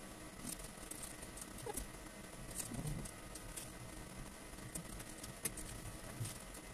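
Faint rustling and scattered light clicks of fingers working shredded tobacco into a handheld cigarette rolling machine, sped up.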